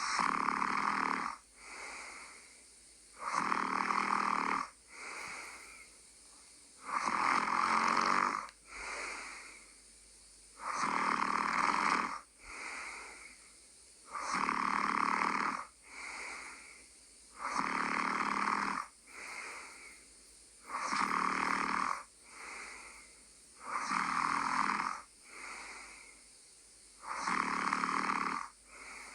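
A person snoring in a steady rhythm: a loud rasping snore on each breath in, followed by a shorter, softer breath out, about every three and a half to four seconds, nine times over.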